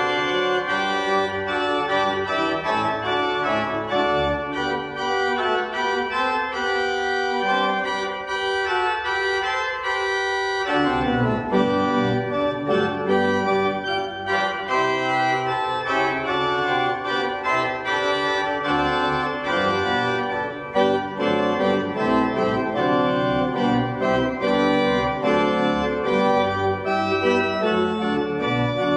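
Church pipe organ playing sustained, full chords. The low notes drop away for a few seconds about a quarter of the way in, then return with the full sound.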